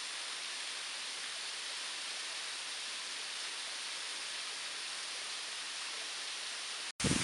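Steady rush of falling water from a waterfall, an even hiss that does not change, broken by a brief dropout near the end.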